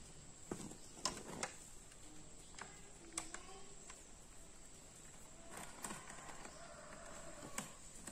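A small screwdriver clicks and scrapes against a laptop's plastic bottom case as the screws are undone. A handful of faint, sharp clicks are scattered through it, several close together in the first second and a half.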